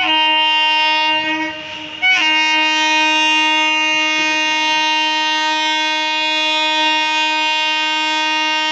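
Indian Railways electric locomotive's horn blowing two blasts: a short one of just over a second, then after a brief break a long steady one of about six and a half seconds.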